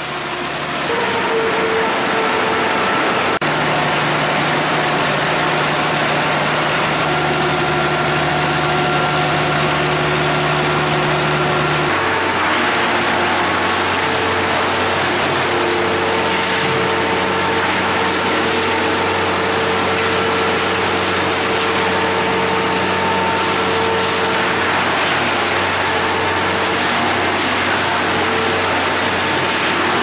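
Large engine-driven wood chipper running, its engine belt-driving the cutter: a loud, steady drone with several steady whining tones that shift a few times.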